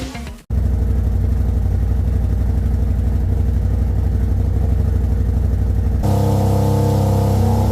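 CFMOTO ZForce 1000 Sport side-by-side's engine running steadily at idle through a tuned aftermarket exhaust. About six seconds in, the note changes abruptly to a different, fuller tone.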